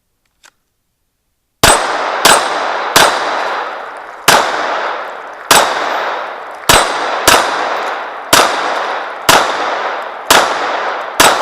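Handgun fired at steel plate targets: eleven sharp shots, spaced unevenly about a second apart, starting about a second and a half in. Each shot has a ringing tail.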